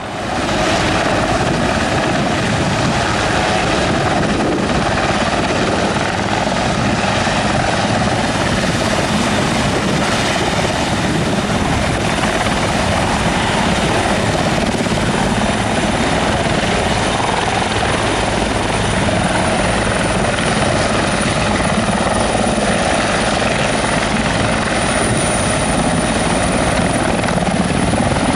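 Helicopter turbine engines and rotor running steadily during takeoff and hover, with a steady high whine over the rotor noise.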